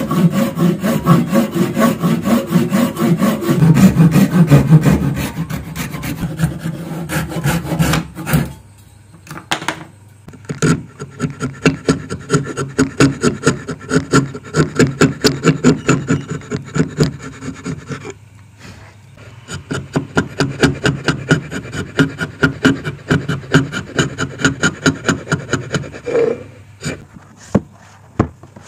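Hand saw cutting through a hardwood block in fast strokes. After a short pause, a steel chisel pares and scrapes the wood in steady strokes, about two a second, with a brief break midway. Near the end comes a knock and a few light clicks of wooden blocks being set down.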